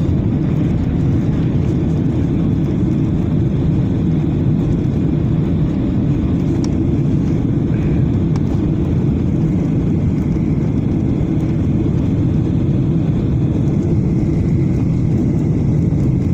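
Steady low roar heard inside the cabin of a KLM Boeing 737 on short final approach: its jet engines and the rush of air over the wing with the flaps extended.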